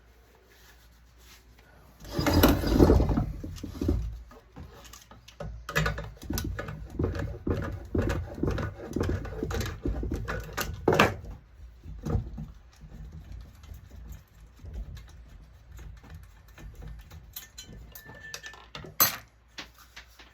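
Metal clattering and knocking as a Gavita Pro 1000e digital ballast's aluminum housing is handled and taken apart. A dense burst of rattling comes about two seconds in, followed by many separate knocks and clicks, with one sharp click near the end.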